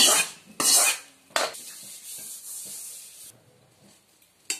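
A steel ladle scraping fried okra out of an aluminium kadai and into a stainless steel colander: three loud scrapes in the first second and a half. Then a fainter sizzle of the hot oil that cuts off about three seconds in, and a single click near the end.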